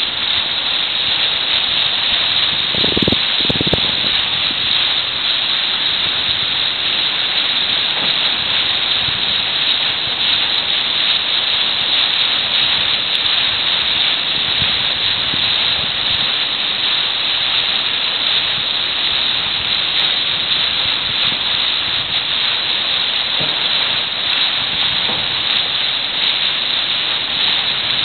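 Steady rushing noise of wind and sea water streaming past a moving freighter's bow, with a couple of brief low thumps about three seconds in.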